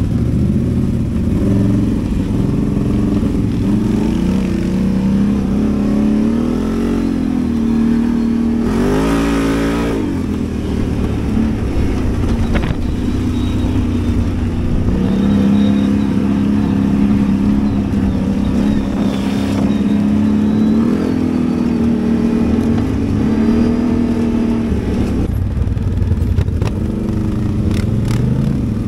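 ATV engine running under way, its pitch rising and falling with the throttle, with a quick rev up and back down about nine seconds in.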